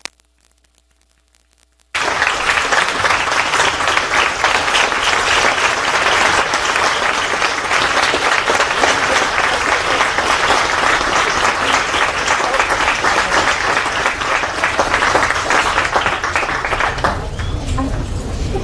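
Roomful of people applauding: a sustained round of hand clapping that comes in abruptly about two seconds in, after a near-silent gap, and eases slightly near the end.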